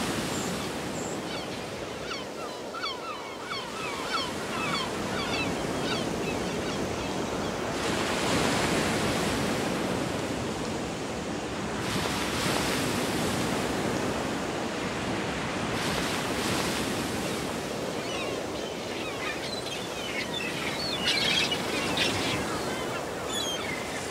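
Wind and sea surf below a high sea cliff, swelling and easing every few seconds, with many short, faint seabird calls scattered throughout.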